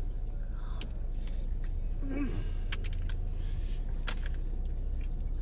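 Steady low hum of a car cabin with the engine running, with scattered light clicks and handling noises and a brief murmur about two seconds in.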